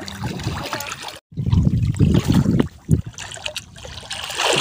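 Seawater sloshing and trickling against a small boat as a spearfisherman moves in the water beside it, with a brief hissing splash near the end.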